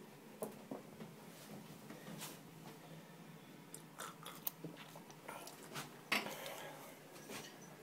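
Close-up eating and drinking sounds: scattered small clicks and mouth noises of chewing, and sips from a metal cup, with one louder, brief noise about six seconds in.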